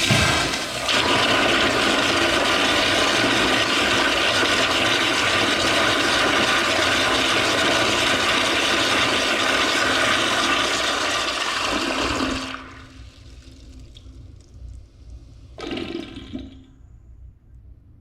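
Toilet flushing: a sudden start, then loud, steady rushing and swirling water for about twelve seconds that cuts off sharply, leaving a quiet trickle. A short, softer rush of water comes again about sixteen seconds in.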